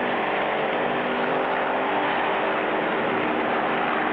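Race car engine running steadily, a continuous engine drone with no letup.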